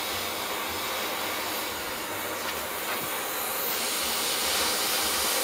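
Hand-held MAPP gas torch burning with a steady hiss, its flame played directly on a pipe-fitting spud to bring it up to silver-soldering heat; slightly louder near the end.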